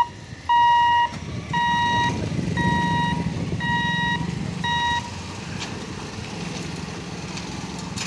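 Railway level-crossing warning buzzer beeping, a steady high tone about once a second, which stops about five seconds in. Motorcycle engines run underneath as traffic moves over the crossing.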